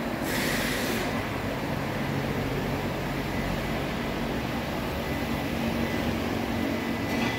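Cummins ISX15 inline-six diesel engine running steadily at constant speed on a test stand, a used engine that runs excellent. A brief hiss comes about half a second in and again near the end.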